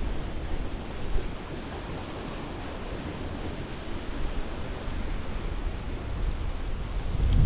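Lake waves washing against the shore in a steady hiss, with wind buffeting the microphone in low rumbles, strongest at the start and again near the end.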